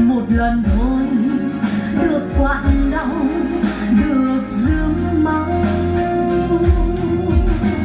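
A Vietnamese song with a sung vocal and deep bass, played through B&W 803 D3 floorstanding loudspeakers driven by an Accuphase E-408 integrated amplifier.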